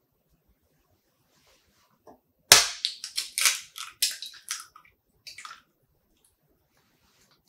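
A whole egg being cracked open: one sharp knock of the shell, then about two seconds of shell crackling and crunching as it is pulled apart. A few more small crackles come about a second later.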